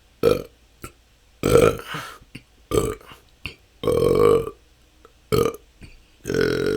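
A person burping repeatedly: about six natural, unforced belches, alternating short ones with longer drawn-out ones, with a few small clicks between. The belching comes from chronic stored-up gas.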